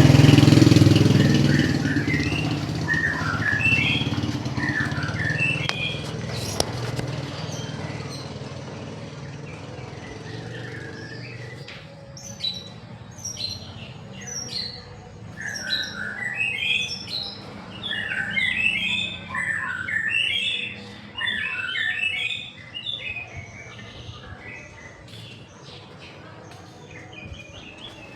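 Small birds chirping in quick short notes, sparse at first and much busier from about twelve seconds in, over a low vehicle engine hum that is loud at the start and fades within the first couple of seconds.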